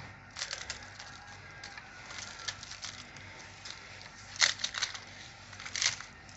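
Oven-baked msemen flatbread being torn and crumbled into small pieces by hand: crisp crackling and tearing, with two louder crunches about four and a half seconds in and near the end.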